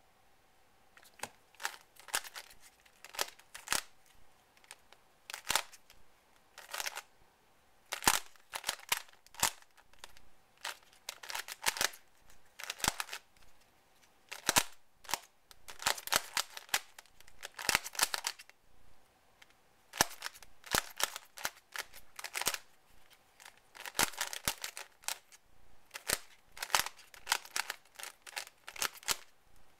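A 3x3 Rubik's cube being turned fast by hand in a speedsolve: rapid plastic clicking and clacking of the layers. The clicks come in quick bursts with short pauses between them, starting about a second in.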